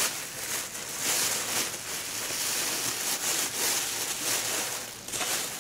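Packaging rustling and crinkling in an uneven run as a wrapped gift is opened by hand.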